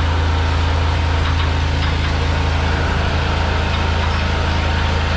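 Engine of a high-pressure sewer jetter running steadily, an even low hum that does not change, driving the water through the hose being fed into a blocked rain pipe.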